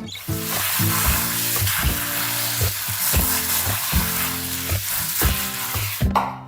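Food sizzling in a hot pan, a steady hiss that starts abruptly and cuts off about six seconds in, with soft background music under it.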